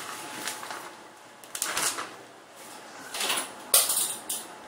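Handling noises: a series of about six short scrapes and rustles as objects are moved about by hand, the loudest a little before the end.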